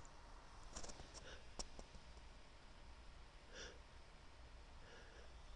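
Near silence: a woman's faint breaths and a couple of soft clicks.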